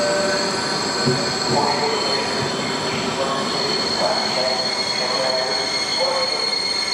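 Passenger train coaches rolling along the platform track, their wheels squealing on the rails. A steady high-pitched whine runs throughout, with shorter, lower squeals coming and going.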